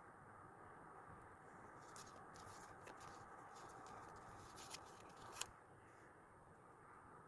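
Faint handling sounds of stickers and paper on a desk: light rustles and small clicks over a steady low hiss, with one sharper click about five and a half seconds in.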